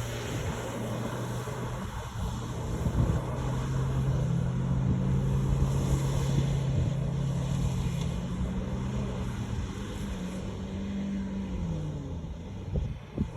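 Car engine held under throttle while doing doughnuts; its note steps up about four seconds in, holds steady, then drops back near the end.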